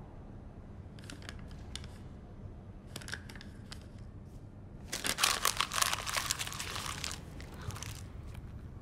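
A sheet of paper being handled: a few short crinkles, then a louder, dense crinkling and crackling of the paper about five seconds in that lasts some two seconds, over a low steady hum.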